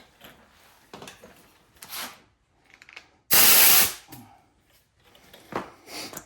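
An impact wrench fires in one short, loud burst of under a second about three seconds in, breaking a wheel bolt loose, with lighter handling knocks around it.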